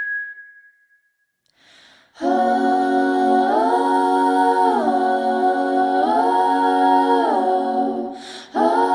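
Music: a sustained hummed or sung chord that steps up and down between two pitches every second or so. It starts about two seconds in, after a held whistle note fades out.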